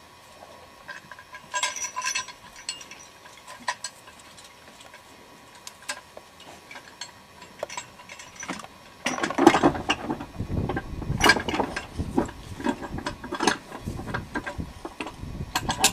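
Draft horse harness rattling and clinking: chains and metal hardware knocking irregularly as the hitched team shifts, sparse at first, then louder and busier clattering with dull knocks from about nine seconds in.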